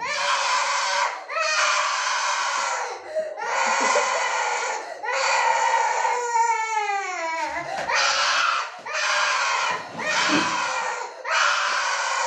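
A small child crying and screaming in loud, drawn-out wails, one after another with short breaks for breath. About halfway through, one wail slides down in pitch.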